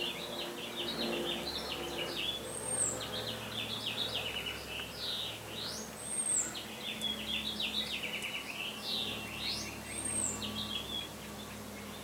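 Songbirds singing in repeated quick chirping phrases with rising and falling sweeps, a short high note recurring every few seconds, over the faint low steady drone of an airplane passing overhead.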